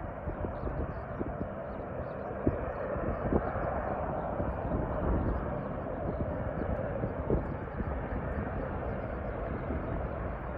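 Jet airliner engine noise, a steady rushing rumble that swells slightly a few seconds in, with irregular low thumps mixed in.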